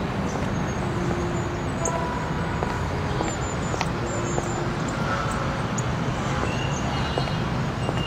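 A car's engine and tyres as it drives up, over a steady outdoor hum of traffic.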